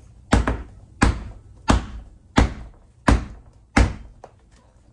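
A motorcycle rear wheel with a new tire mounted being bounced on the floor, six thuds about one and a half a second. The bounces are meant to help the squished tire bead break loose so that it will seat on the rim.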